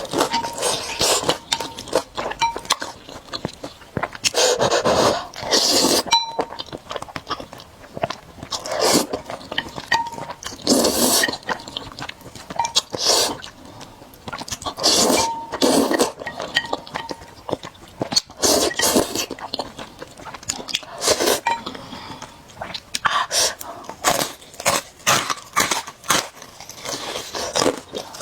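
Close-up eating of noodles: repeated short slurps and chewing with wet mouth clicks, a surge every second or two.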